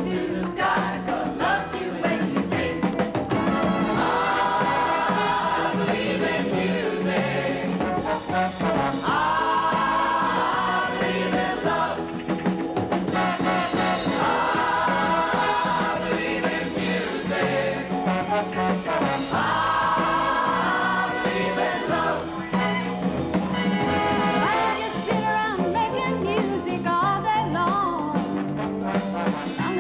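Upbeat variety-show music with a brass section and a chorus singing, with bright held chords coming back about every five seconds.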